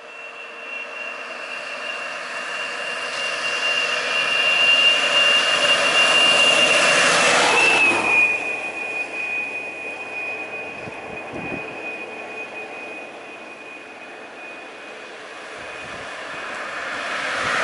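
Road traffic passing close. A bus draws near and goes by, its steady high whine dropping in pitch as it passes about eight seconds in. Another vehicle swells in near the end.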